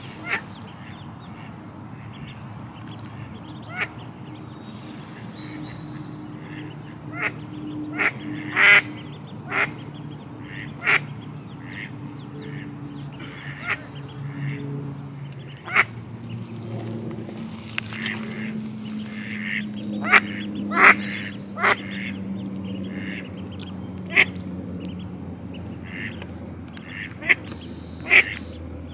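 A hen duck with her ducklings gives short quacks at irregular intervals, several in quick succession at times, over a low steady hum. The calls are the kind a mother duck makes to her brood.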